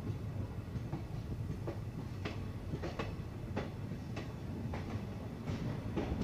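Wheels of a moving passenger express train coach clacking over rail joints, about three clacks every two seconds, over a steady low rumble of the running train.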